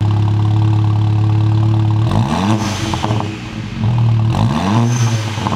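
Volkswagen MK7 GTI's turbocharged 2.0-litre four-cylinder idling through an AWE Track Edition exhaust. The engine is revved twice, about two seconds in and again near the end, each rev rising and then dropping back to idle.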